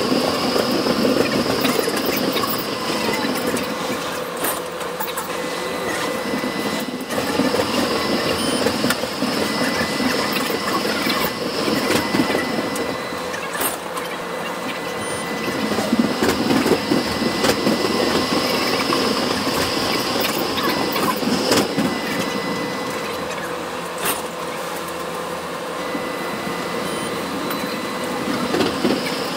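Inside a moving tram: the steady running noise of wheels on rails and the motors, with a constant hum and occasional clicks and rattles from the car.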